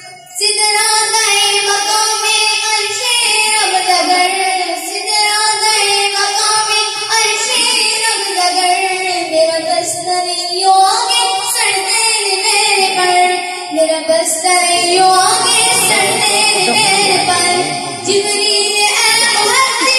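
A boy singing a devotional hamd-and-naat poem, unaccompanied, into a microphone and loudspeaker. He sings long, wavering melodic phrases with short breaks for breath between them.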